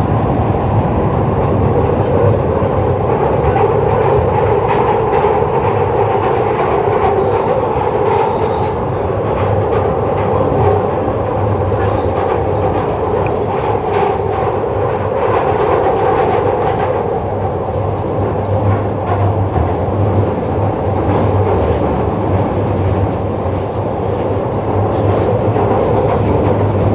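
Glasgow Subway train running through its tunnel, heard from inside the carriage: a loud, steady rumble of wheels on rail with light clicking, more of it in the second half.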